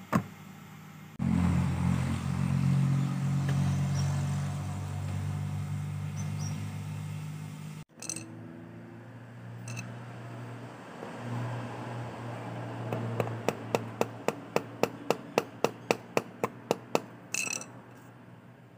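A car engine idling, a steady low hum that cuts off abruptly. A fainter hum follows under a run of about sixteen sharp, evenly spaced clicks, roughly four a second, made while a plastic cable tie is worked by hand.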